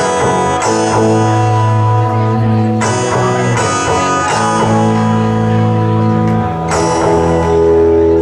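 Electric guitar played through a delay effect: sustained notes and their repeats overlap into a layered, ringing wash. The harmony shifts about three seconds in and again near the end, where a lower bass note enters.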